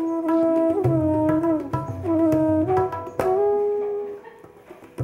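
Background music: a wind instrument playing a slow melody with bending, sliding notes over a low accompaniment, thinning out near the end.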